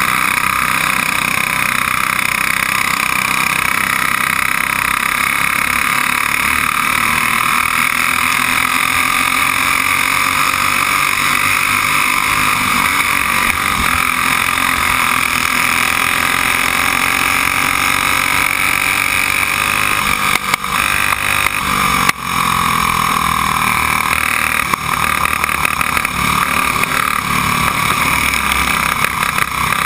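Stock Briggs & Stratton Raptor single-cylinder kart engine running hard under race load, heard onboard, its pitch rising and falling with speed through the turns, with other karts running close by. The sound dips briefly a couple of times about two-thirds of the way in.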